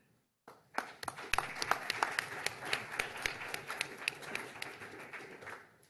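Audience applauding: a round of clapping that starts about half a second in and tapers off near the end.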